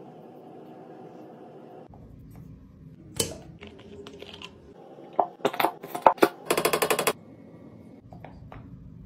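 Hard plastic clicks and knocks as a shampoo bottle's cap and a wall-mounted shower dispenser's lid are handled: one sharp click about a third of the way in, a run of clicks and knocks after the middle, then a fast rattle lasting about half a second.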